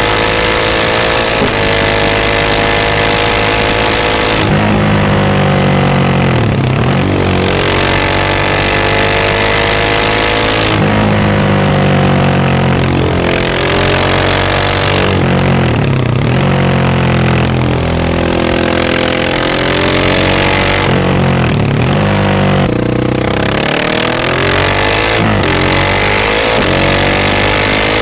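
KTM 690 SMC R single-cylinder engine through a Wings exhaust, ridden hard. The revs climb and fall repeatedly, and about four times the throttle shuts off and the pitch drops before it pulls again.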